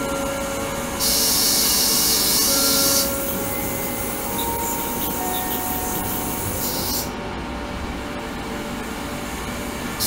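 Ultrasonic tank running in water: a steady hiss with faint steady hums beneath. The high hiss jumps louder about a second in, falls back about two seconds later and drops out near seven seconds in, as the ultrasonic output changes.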